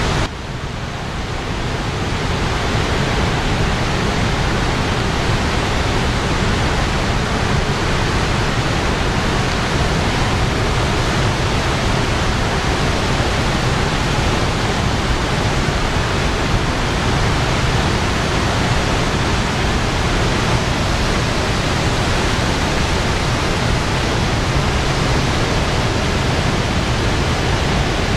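Dam spillway discharge: a loud, steady rush of released water falling and churning. The sound drops briefly at the very start and swells back within about two seconds.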